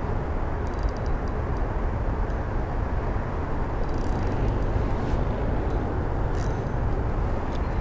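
Wind buffeting the microphone: a low, steady rush, with a few faint clicks over it.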